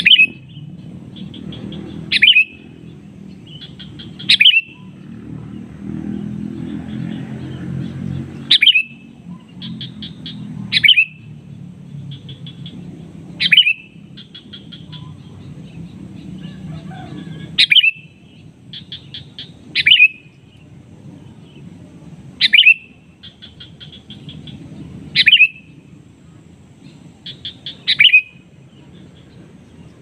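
A male sooty-headed bulbul calling, about eleven times, every two to three seconds: each call is a quick stuttering run of notes that ends in one loud, sharp note. This is its call to rival birds. A low steady rumble runs underneath.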